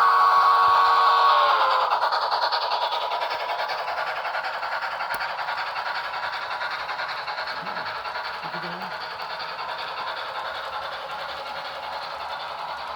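Cab-forward locomotive sounding a steady chord whistle that stops about a second and a half in, then running with a fast, even rhythmic chuff and clatter that slowly fades as it moves away.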